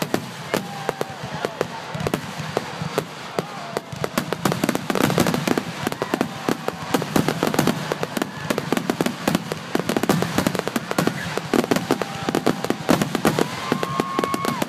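Fireworks finale barrage: a rapid, dense string of bangs and crackles that grows thicker and louder about four seconds in.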